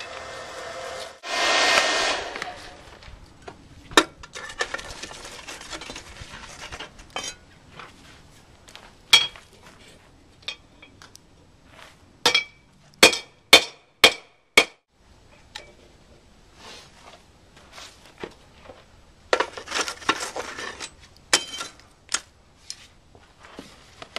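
Sharp metal-on-metal strikes and clinks with a brief ring: a quick run of about six in the middle, and single ones scattered before and after. Between them come bursts of an electric blower's whirring rush, with a steady whine, blowing air into the charcoal forge.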